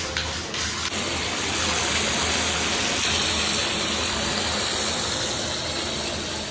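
Handheld shower head running water into a foam-filled bathtub: splashy and uneven for about the first second, then a steady rushing hiss of water.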